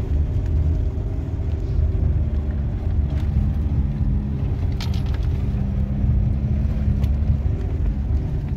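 Force Gurkha SUV's diesel engine running steadily, heard from inside the cabin as it drives over a rough gravel mountain track. A low rumble carries through, with a few clicks and rattles, the clearest about five seconds in.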